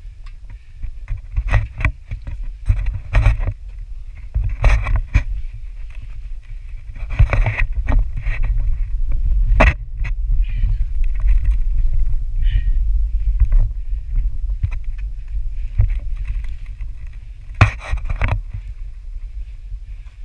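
Low rumble of wind and handling noise on a GoPro's microphone, broken by scattered knocks and scrapes from shoes and hands on rock and from gripping the camera pole during a boulder scramble.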